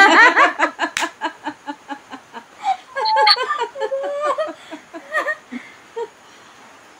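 Women laughing together: a loud burst at the start breaks into short, rhythmic chuckles and giggles, then dies away about six seconds in.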